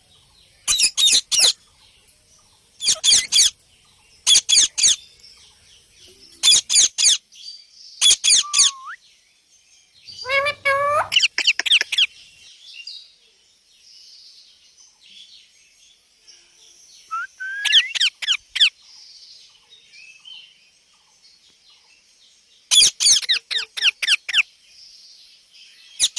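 Indian ringneck parakeets calling: short bursts of fast, repeated high-pitched calls every few seconds, with quieter chatter between them.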